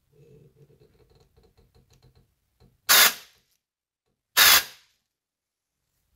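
Two short blasts of compressed air from an air blow gun, about a second and a half apart, forced into an engine block's oil drilling to test that the spring-loaded oil squirter opens and squirts. Faint quick soft ticks come before the blasts.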